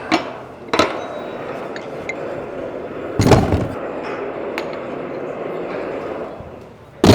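Metal pump tie rods and parts being handled on a workbench: sharp metallic clinks and knocks, with one heavier thud about three seconds in.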